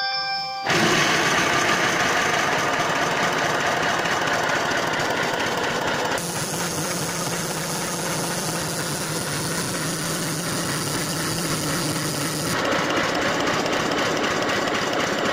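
Live-steam model locomotive being steamed up: a steady, dense mechanical running noise with a fast knocking, rattling texture that starts abruptly just under a second in.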